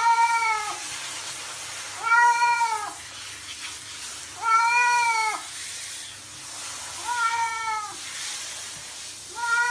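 A wet cat meowing in protest while it is showered, five drawn-out meows about every two and a half seconds, each rising and then falling in pitch, over the steady hiss of shower spray.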